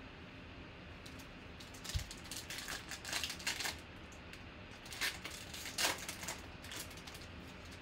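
Foil trading-card pack wrapper, a Panini Prizm football pack, being torn open and crinkled by hand in two stretches of crackling. There is a low thump about two seconds in.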